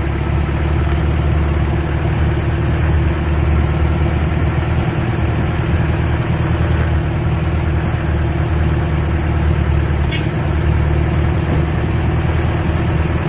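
Mahindra jeep engine running steadily under load in second gear, pulling up a slight climb, heard from inside the cab.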